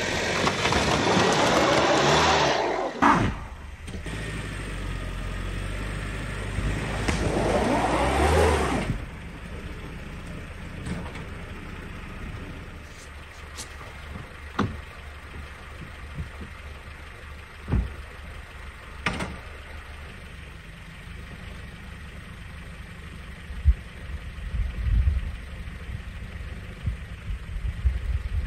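Car engine revving hard in two bursts, one at the start and one ending about nine seconds in, as the car tries to climb out of deep snow over logs laid under its tires, the tires spinning for grip. After that the engine runs low and steady, with a few sharp knocks.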